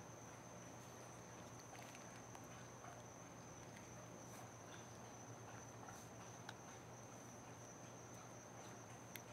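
Near silence: a faint steady high whine and low hum, with scattered soft clicks from a pitbull puppy chewing on a woven bracelet on a wrist.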